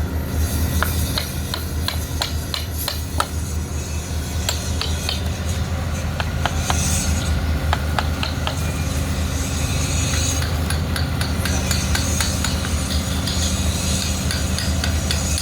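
Metalwork on a steel crane rail: irregular sharp metallic ticks and taps over a steady low machine hum, with a high hiss coming in about seven seconds in and again through the second half.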